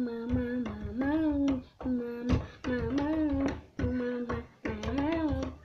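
Music with a short melodic figure repeating about once a second: a held note, then one that bends up and back down, over a low beat with clicks.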